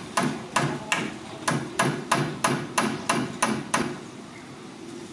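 A fast, even series of sharp knocks, about three a second, that stops about four seconds in.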